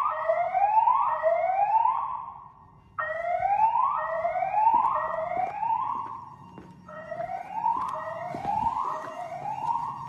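Fire alarm speakers sounding the whoop tone in a code-3 pattern: three rising whoops of about a second each, then a short pause, repeating, from an EST voice-evacuation fire alarm system.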